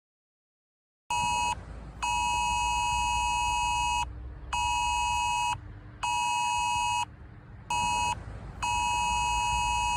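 Mobile phone sounding the UK Emergency Alerts test tone: a loud two-tone alarm beeping in a repeating pattern of long and short tones with brief gaps, starting about a second in. A low buzz runs underneath.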